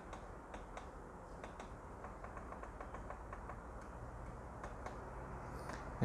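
Faint clicks of the keypad buttons on an LS M100 variable frequency drive being pressed one after another at irregular intervals, as a parameter value is stepped and entered.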